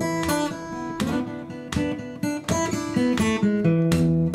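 Intro theme music: acoustic guitar, strummed chords and picked notes.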